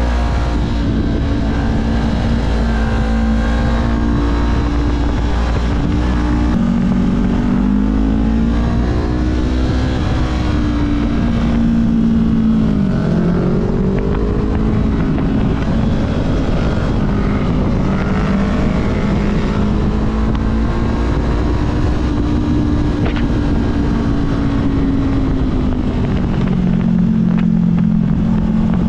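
Honda CB500F parallel-twin engine under way, its revs rising and falling through a run of bends, with a dip about halfway and a lower note near the end. Wind rush on the microphone runs under it.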